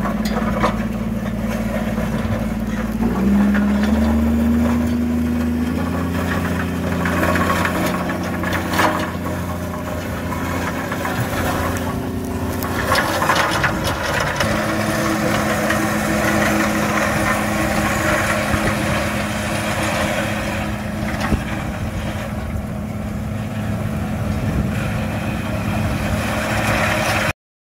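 Tractor engine running steadily under load as it pulls a tine aerator through dry stubble, its pitch stepping up a few times, with a rough noisy rush of the tines and stubble over it. It cuts off suddenly near the end.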